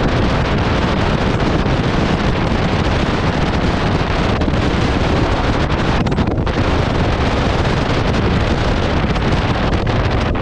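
Steady wind buffeting a GoPro microphone on a motorcycle riding at road speed, a dense rushing noise strongest in the low end.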